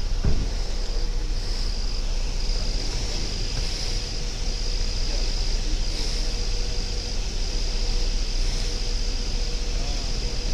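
Steady low rumble and hiss of outdoor noise, with a faint, steady high-pitched whine that comes and goes.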